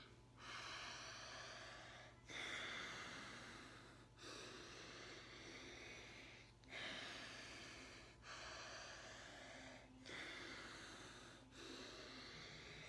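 Alternate-nostril breathing (anulom vilom): faint hissing breaths drawn in and pushed out through one nostril at a time, a steady run of about seven, each lasting one to two seconds with a short break between.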